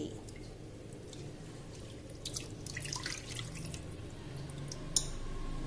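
Water sloshing and dripping as a hand stirs soaked kodo millet and moong dal in a pressure-cooker pot, with a sharp click about five seconds in.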